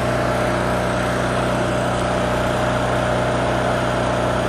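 Miller Trailblazer engine-driven welder running at a steady speed: an even hum with a steady hiss over it.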